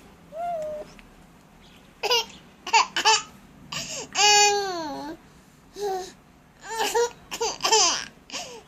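Baby babbling and squealing in short high-pitched bursts, with one long squeal about four seconds in that dips and then rises in pitch.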